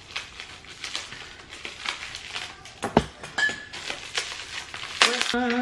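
Plastic packaging being opened by hand: rustling and crinkling with scattered small clicks and taps, and one sharp click about three seconds in. A short hummed note from a person's voice near the end.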